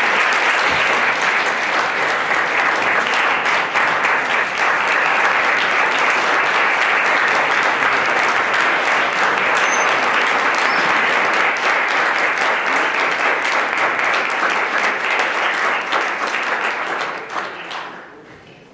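Large audience applauding at length after a lecture ends, dense steady clapping that dies away near the end.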